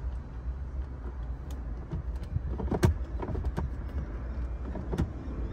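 Sharp plastic clicks and knocks as the Hyundai iX55's cabin air filter cover is worked into its housing behind the glovebox, about five of them, the loudest about three seconds in. A steady low rumble runs underneath.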